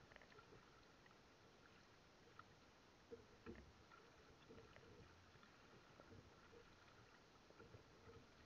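Very faint paddling of a small outrigger boat: the paddle dipping into the water, with scattered light knocks and splashes, the loudest about halfway through.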